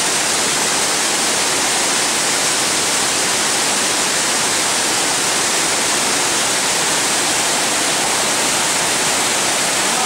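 Waterfall cascading down a rock face: a loud, steady rush of falling water.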